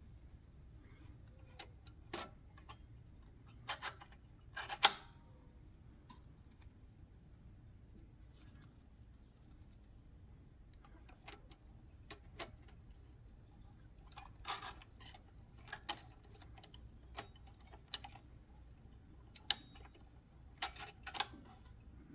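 Scattered light clicks and metallic taps from small typewriter parts being handled while a new ribbon is fitted to the spool of a Smith Premier No. 10 typewriter. The clicks come irregularly, in small clusters, the sharpest about five seconds in.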